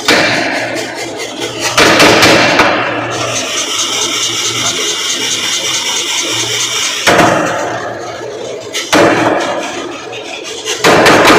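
Motor-driven mechanical power hammer running, worked by its foot treadle. Loud bursts of machine noise come about 2, 7 and 9 seconds in, and a fast, even run of ram blows begins near the end.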